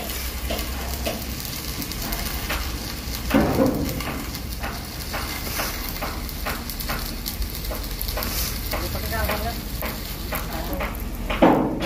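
Electric arc welding on a steel ship's hull: a steady crackling sizzle of the arc, with two louder thuds about three seconds in and near the end.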